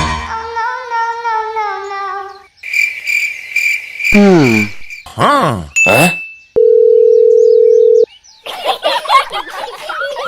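A string of edited sound effects. First a wavering pitched voice, then a high pulsing beep, then a few falling and rising glides. After that comes a plain steady tone like a telephone dial tone, held for about a second and a half, and near the end a busy babble of voices.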